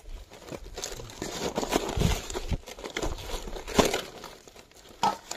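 Green fan-palm leaf rustling and crinkling under hands and a bamboo skewer as a roasted chicken is worked off the stick, with irregular small crackles and snaps.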